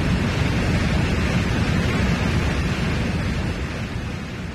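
Explosion and fire sound effect: a dense rushing noise, strongest in the low end, that slowly fades.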